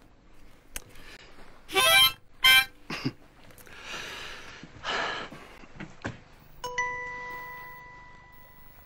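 Short squeezed notes from a concertina, two loud reedy blasts about two seconds in, then a single clear note starting near the end and ringing away as it fades.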